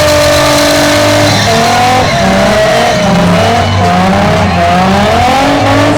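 Nissan 350Z drift car sliding with its tyres squealing. Its engine revs rise in quick repeated surges as the throttle is worked through the drift.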